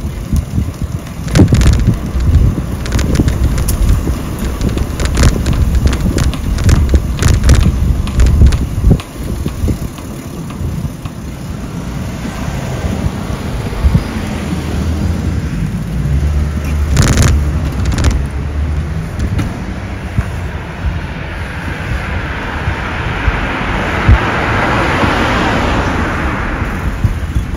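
Road traffic on a street: cars going by, one swelling and fading away near the end. There is a heavy low rumble and a run of sharp clicks and knocks over the first several seconds.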